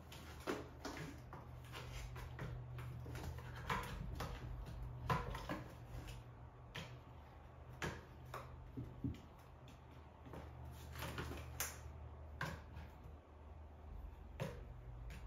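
Balinese kittens playing with an open cardboard box on a tile floor: irregular light knocks, taps and scuffs of cardboard being batted and shoved and paws scrabbling, spaced a second or more apart, with a quick pair of knocks near the end. A faint steady low hum runs underneath.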